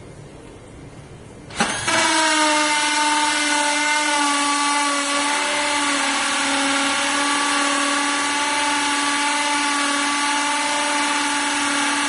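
Bosch 18-volt cordless drill starting with a click about a second and a half in, then running at a steady high whine as its bit bores a handle hole through the storm door's thin steel.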